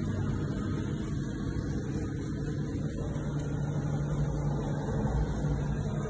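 Perkins 1106A-70TAG3 six-cylinder turbocharged diesel generator engine running steadily.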